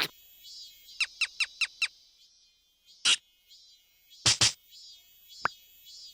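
Cartoon sound effects: a quick run of five short falling chirps, then a few separate short squeaks and pops.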